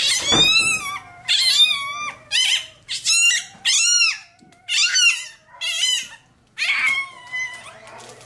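Newborn Rottweiler puppy crying during tail docking: about eight short, high-pitched squealing cries in a row, each rising and falling in pitch, fading toward the end.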